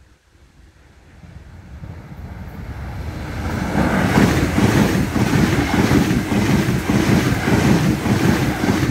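An ICE 3 high-speed train passing through at speed. The rush of wheels on rail and air builds over the first few seconds, then stays loud with a rapid rhythmic beat as the cars go by, easing slightly at the very end.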